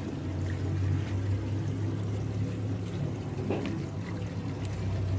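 A steady low machine hum with a rushing noise over it and a few faint ticks.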